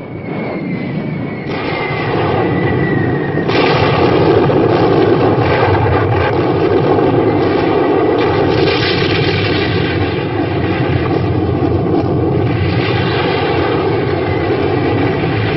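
Battle sound of the Normandy landings: a loud, dense engine drone mixed with gunfire and shell bursts. A faint falling whistle sounds in the first few seconds, and the din grows louder about three and a half seconds in.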